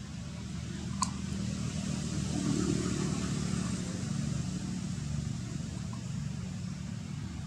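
Low, steady rumble of road traffic that swells a little as a vehicle passes, with one short sharp click about a second in.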